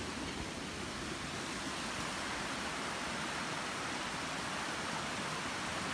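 Steady rushing of fast-running creek water.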